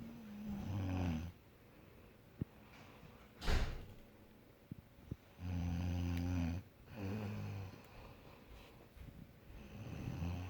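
A person snoring: three long, buzzing snores about four to five seconds apart, a shorter one just after the second, and a single brief snort of breath between the first two.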